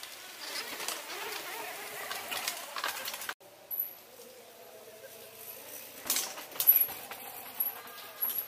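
A mountain bike riding over a dirt forest trail: tyres crunching and the bike rattling, broken by a sudden short cut in the sound just after three seconds, then a cluster of sharp clacks about six to seven seconds in as it goes over bumps.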